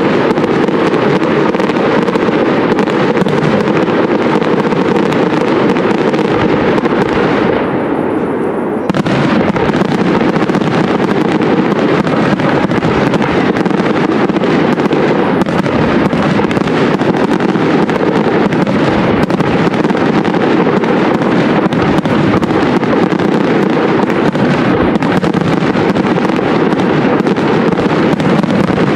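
Aerial fireworks shells bursting in a dense, continuous barrage of rapid bangs. The barrage goes softer and duller for a moment about eight seconds in, then comes back abruptly.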